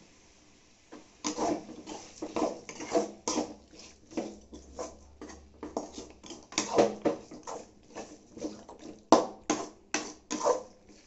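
Metal spatula scraping and knocking against a metal kadai as chicken pieces coated in thick masala are stirred, in an irregular run of short scrapes and clanks starting about a second in.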